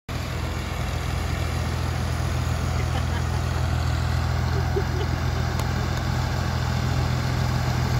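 New Holland Ghazi 65 hp tractor's diesel engine running steadily under load as it pulls a laser land leveller, a constant low hum that does not change.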